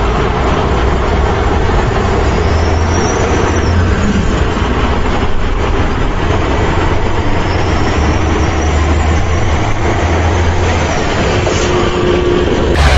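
Heavy truck engine running steadily, a continuous low rumble that swells and eases.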